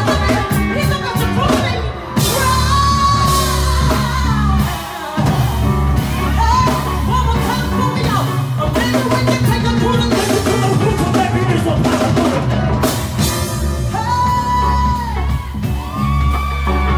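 Live band playing a neo-soul song, with a woman's voice holding long sung notes over bass, drums and guitar.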